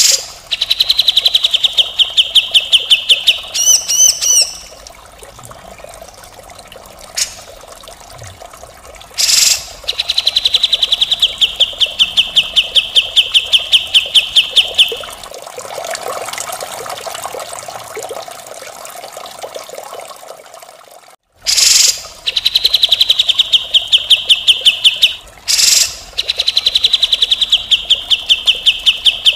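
Cucak jenggot (grey-cheeked bulbul) giving its harsh, rapid chattering 'mbeset' song: four long rattling runs of quick notes, each lasting a few seconds and dropping a little in pitch. Short sharp calls come between the runs, with a quieter stretch in the middle.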